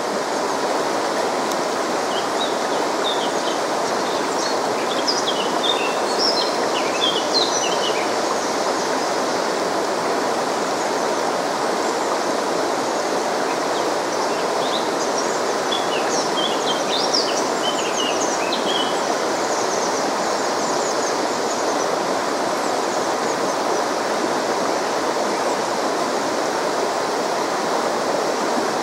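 Fast mountain river rushing over rocks, a steady, even sound of water. Scattered short, high chirps sound over it in the first third and again around the middle.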